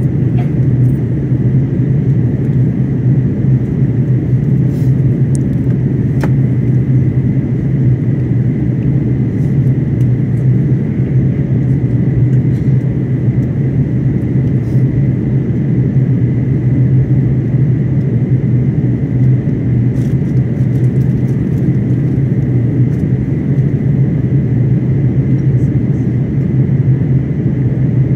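Steady cabin drone inside an Airbus A330-900neo airliner descending towards landing: engine and airstream noise heard from a window seat beside the wing, deep and even, with a faint high steady whine above it.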